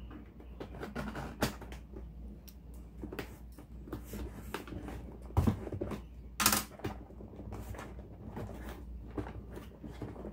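Cardboard shipping box being opened by hand: scissors cutting the packing tape, then the lid flap pulled up, with irregular scrapes, rustles and taps on cardboard. Two louder knocks come about halfway through.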